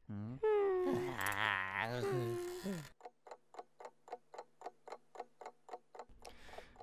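A cartoon character's drawn-out groan with wavering pitch, then a wall clock ticking steadily, about four ticks a second, for the last few seconds.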